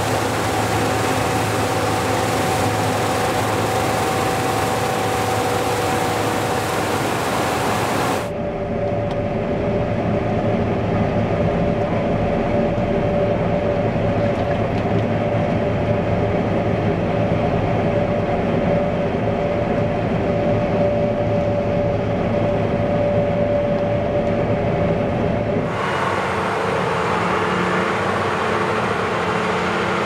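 Fendt Ideal 7T combine harvester running steadily, a dense mechanical noise with a steady whine on top. About eight seconds in the sound turns abruptly duller, the high hiss gone, and it changes again near the end.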